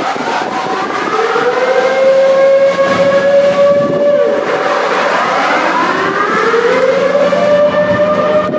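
Outdoor warning sirens wailing, their pitch rising, holding and falling again about every four seconds. More than one siren is heard at once, out of step with each other.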